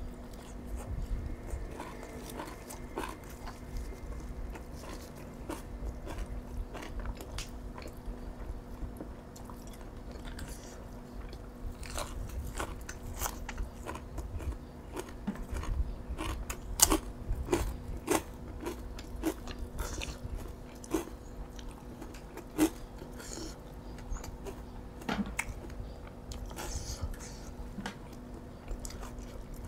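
A person eating boiled field snails and a spicy pounded long-bean salad by hand: close-up chewing and crunching with many short, sharp clicks, a couple of them louder in the second half.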